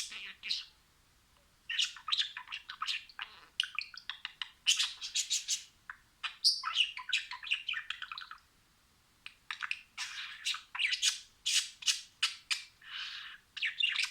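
Budgerigars chirping and warbling in quick, chattering bursts, with short pauses between phrases.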